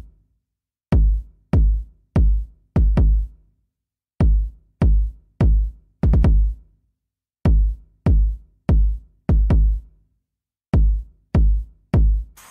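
Electronic beat intro of deep drum-machine bass-drum hits played alone, each a sharp attack trailing into a low pitched tail. They come in repeating phrases of about five hits, with a short pause after each phrase.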